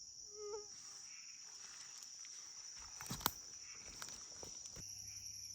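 Steady high-pitched chorus of crickets and other insects in a swamp forest, with a short pitched animal call about half a second in. A few sharp snaps or steps, the loudest about three seconds in.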